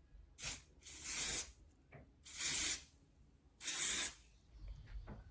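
A hair spray sprayed onto the hair in four short hissing bursts over about four seconds.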